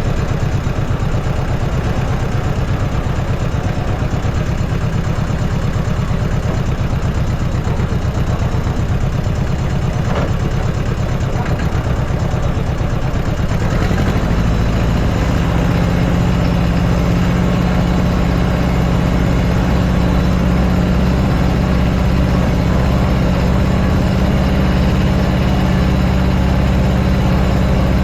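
Engine of a farm machine running at idle after being started. About halfway through, its note steadies and grows slightly louder.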